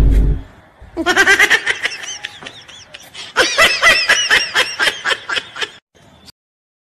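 A short heavy boom right at the start, then a person laughing hard in two long runs of quick, repeated ha-ha bursts that stop about six seconds in.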